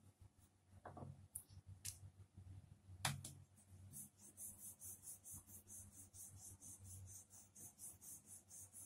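Wooden rolling pin rolling out a thin round of flour dough on a floured board: faint, even strokes, about four a second from around four seconds in, after a single knock about three seconds in.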